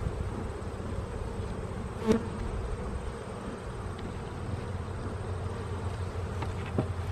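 Honeybees buzzing steadily in a dense swarm around an opened hive. A sharp crack stands out about two seconds in, with a smaller knock near the end.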